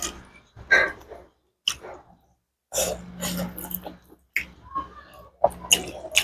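A person eating close to the microphone: several short bursts of chewing and wet mouth sounds with brief gaps between them.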